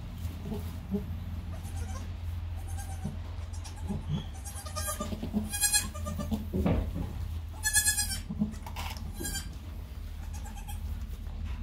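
Newborn goat kids bleating: a series of short, high-pitched cries, most of them between about five and nine seconds in, over a steady low hum.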